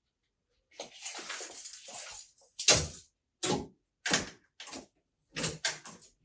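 A sliding glass door of a refrigerated display case rolling along its track for about a second and a half, followed by a series of sharp knocks and clacks, about seven in all.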